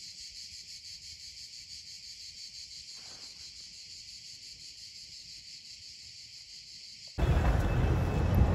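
A steady, high chorus of insects with a fine regular pulsing. About seven seconds in it cuts off abruptly to loud city street noise.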